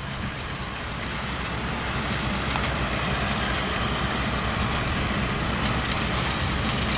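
Tractor and round baler running, a steady mechanical noise with a low engine drone that grows slowly louder.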